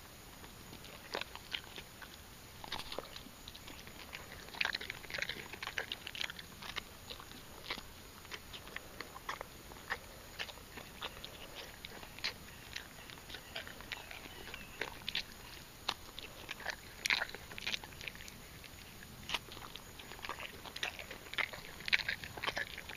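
A miniature horse biting and chewing a banana peel held to its mouth: an irregular run of short chewing clicks.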